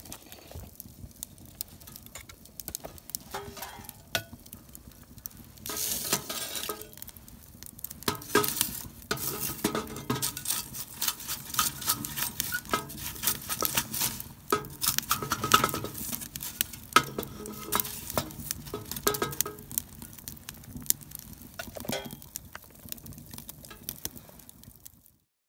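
Wood fire crackling and popping in a small steel wood stove with its door open. Busier through the middle, with metal clinks and knocks as tongs shift the burning logs.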